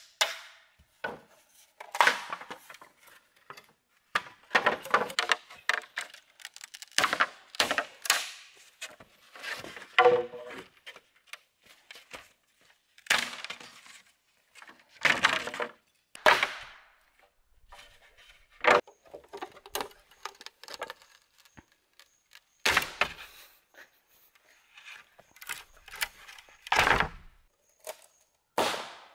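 Green bamboo being struck and split with a hammer and blade: irregular knocks and splintering cracks, one every second or few, with quiet gaps between them.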